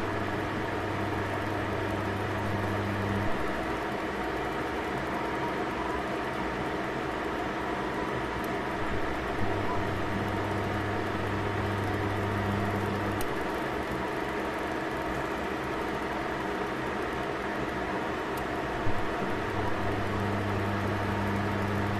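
Two eggs frying gently in a stainless steel pan: a steady soft sizzle, with a low hum that comes on three times for about three to four seconds each.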